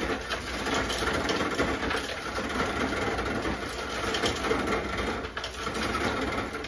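Refrigerator ice dispenser running in crushed-ice mode, a steady mechanical grinding and rattling that stops abruptly near the end.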